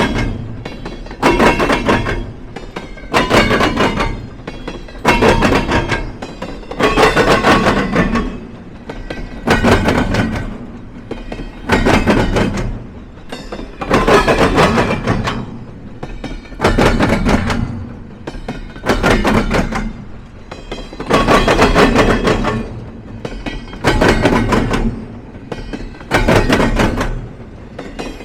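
Freight train cars rolling across a railroad diamond crossing, the wheels banging over the crossing in a loud, regular beat about every two seconds, spaced a little wider toward the end, with a metallic ringing from the wheels.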